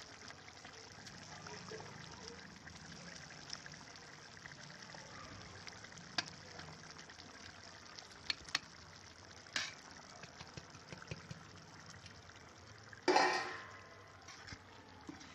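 Tomato gravy simmering in a steel kadhai, a faint steady bubbling hiss. A few light clicks as paneer cubes are tipped in from a steel plate, and a louder scrape of a steel ladle in the pan near the end.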